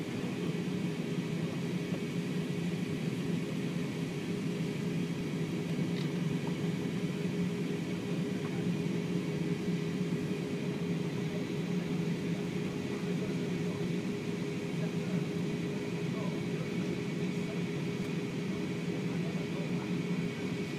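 Steady cabin noise inside an Airbus A320 on approach: a constant low hum of jet engines and airflow, with a few held tones over it.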